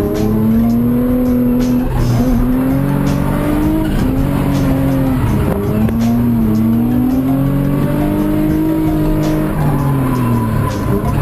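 Car engine revving up and down repeatedly, its pitch rising and falling over a few seconds at a time, as in track driving or drifting.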